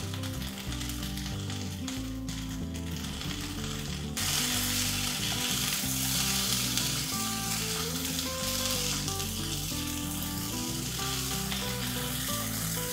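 Diced vegetables (carrot, celery, green pepper, potato) frying in a nonstick pot, sizzling, the sizzle turning suddenly louder about four seconds in, with a spatula stirring through them. Background music plays underneath.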